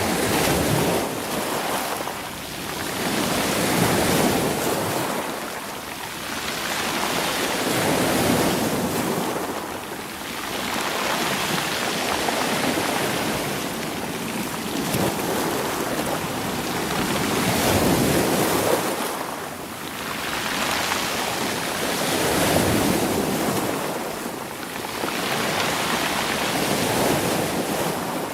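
Sea waves washing over a rocky shore, rolling the stones as each wave surges in and draws back. The rush swells and ebbs every four to five seconds.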